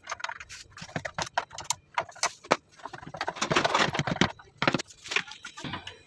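Irregular clicks, knocks and light rattles of a Toshiba washing machine's plastic control panel and timer units being handled and worked with a screwdriver, during disassembly to remove the timer.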